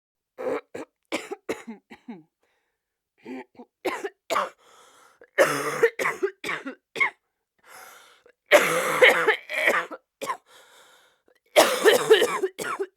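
A person coughing in about five separate fits, each a quick run of short coughs, some opening with a longer, louder cough. A faint breath is drawn in between the later fits.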